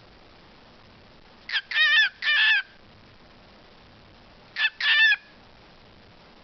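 Pet talking bird calling in two short bursts of high, wavering notes. The first comes about a second and a half in, a brief note then two longer ones; the second, about three seconds later, is a brief note then one longer one.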